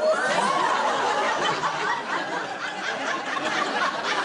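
Studio audience laughing, many voices together at a steady level.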